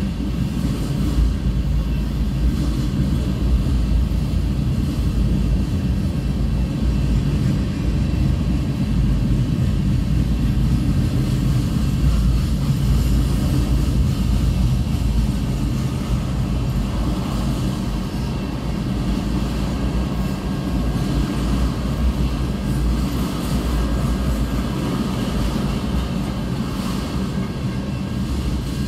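Freight train cars (tank cars and gondolas) rolling steadily past a grade crossing: a continuous low rumble of wheels on the rails.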